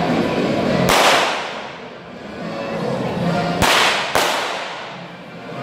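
Three bangs from model galleons' small cannons firing, each echoing around the hall: one about a second in, then two in quick succession near the end.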